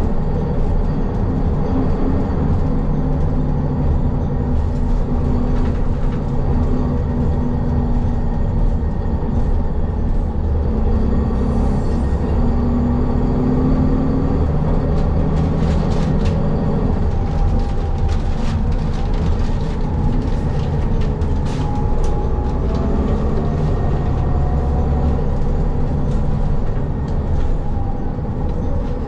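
City transit bus heard from inside the cabin while driving: a steady engine and road rumble, with the engine note rising and falling now and then. Scattered rattles and clicks come through in the second half.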